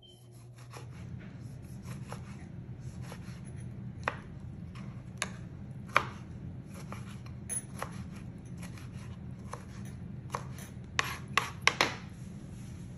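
Kitchen knife dicing a tomato on a plastic cutting board: irregular taps of the blade on the board, with a quick run of several sharper taps near the end. A steady low hum runs underneath.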